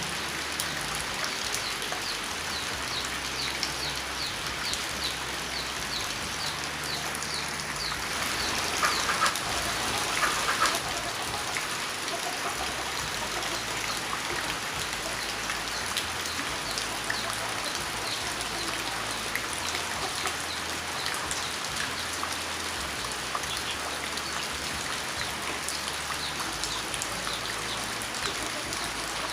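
Steady rain falling and splashing on a surface, briefly heavier about nine to eleven seconds in. Over the first several seconds a series of short high chirps repeats about twice a second.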